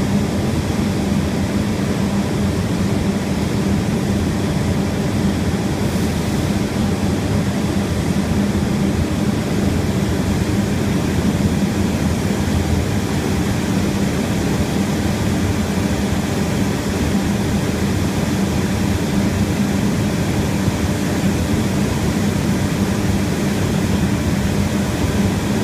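Steady low mechanical drone with a constant hum, unchanging throughout.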